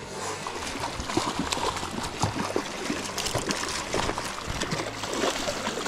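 River water flowing and splashing, with many small quick splashes through it.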